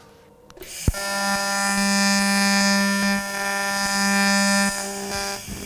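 TIG welding arc on titanium pipe: a sharp crack about a second in as the arc strikes, then a steady electric buzz for about four and a half seconds that stops just before the end.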